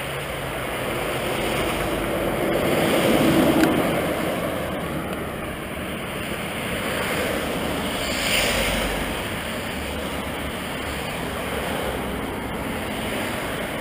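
Steady rushing noise of wind and road traffic. It swells about three seconds in, with a brief louder rush near eight seconds.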